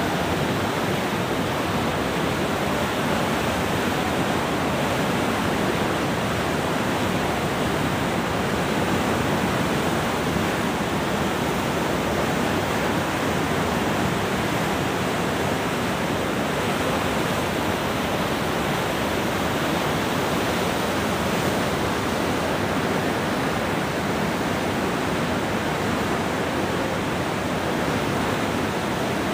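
A muddy flash-flood torrent rushing down a hill-stream bed in full spate: a steady, unbroken rush of water.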